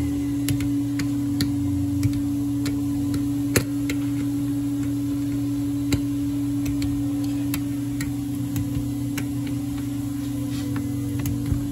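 Socket ratchet clicking in short, irregular bursts of single clicks as the clutch pressure-plate bolts are run down, over a steady low hum.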